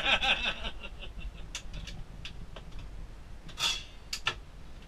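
Galley cabinet doors and a small dishwasher door being handled: scattered light clicks and knocks, with a short louder clatter about three and a half seconds in and two quick clicks just after. A low steady hum runs underneath.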